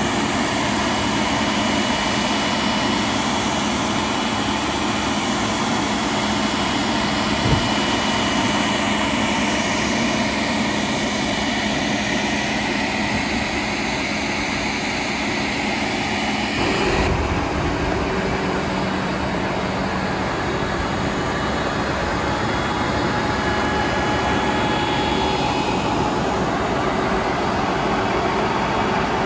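Case IH Quadtrac 620 tractor's large diesel engine running steadily, heard close up from outside the machine, with a constant fan-like whine over the engine noise. The tone of the noise changes abruptly partway through.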